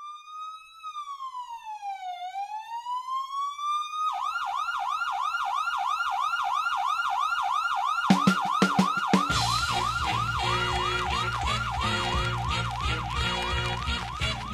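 Intro of a rap track built on a police-style siren sample: a slow wail that rises and falls, switching about four seconds in to a fast yelp of about four cycles a second. A few drum hits come in near eight seconds in, then a bass-heavy hip-hop beat joins under the continuing siren.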